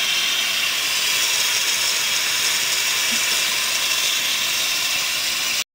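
Instant Pot electric pressure cooker's steam release valve venting pressurised steam by hand after cooking: a loud, steady hiss that cuts off abruptly near the end.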